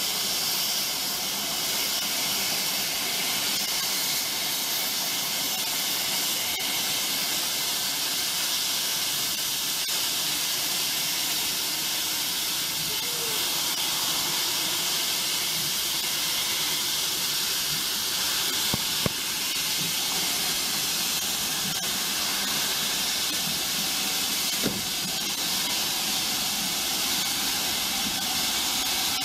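Steam locomotive letting off a steady, loud hiss of steam from low down at its front end, by the wheels. Two short knocks about two-thirds and five-sixths of the way through.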